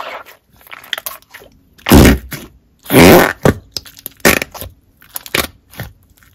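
Purple Play-Doh Super Stretch slime being squeezed by hand and pressed into its plastic cup, squishing and letting out pops of trapped air. Two loud pops come about two and three seconds in, followed by a string of shorter ones.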